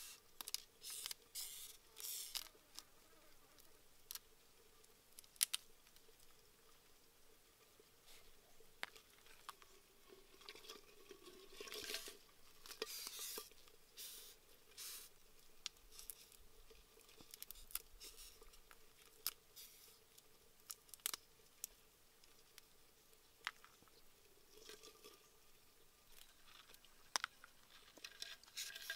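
Faint, scattered clicks, crackles and small tearing sounds of fingers pulling apart and cleaning small hard-shelled insects.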